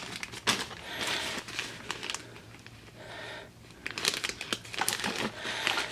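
Clear plastic zip-top bags crinkling and rustling as they are handled, in irregular bursts that get busier and louder in the second half.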